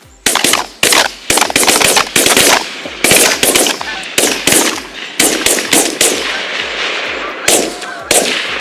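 A rapid volley of many shotgun shots from several hunters firing together at a flock of geese over decoys. The volley starts about a third of a second in and continues with overlapping blasts throughout.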